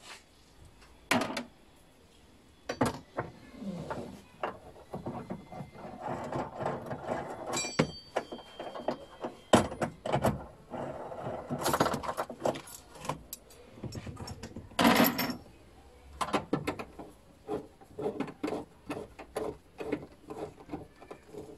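Nuts being worked off a car's side trim panel with a metal T-handle wrench and gloved hands: irregular clicks, knocks and metal clinks, one briefly ringing, mixed with rustling of the plastic and carpeted trim.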